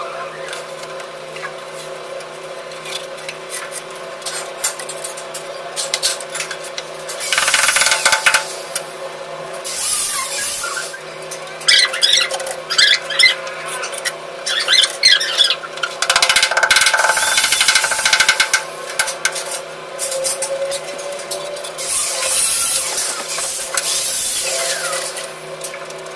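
A steel trowel scraping and spreading cement mortar, in several bouts of rough scraping, as mortar is taken from a bowl and buttered onto the back of a ceramic wall tile. A steady low hum lies underneath.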